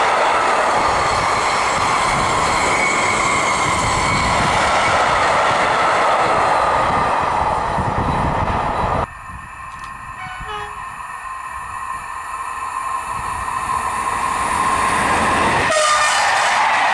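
A long freight train of tank wagons passing close by, its wheels clattering over the rail joints. About nine seconds in the sound drops abruptly to a quieter rumble that slowly grows, with faint steady tones over it, and near the end a locomotive-hauled TER passenger train passes loudly.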